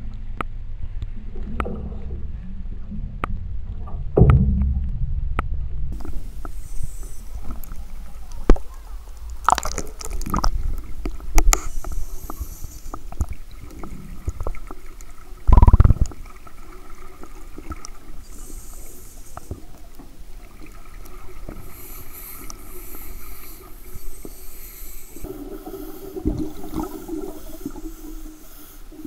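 Underwater sound of a scuba diver working on a pool floor: exhaled air bubbling up, with many short clicks and knocks and one loud low surge of bubbles about halfway through.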